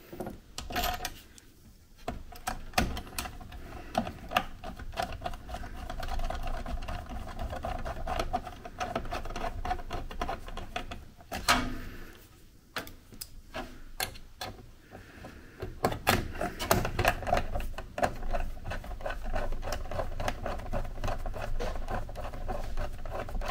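Screwdriver turning the small metal screws of a Noctua AM4 mounting plate and risers into a motherboard: a dense run of light metal clicks and ticks, with a short lull about halfway.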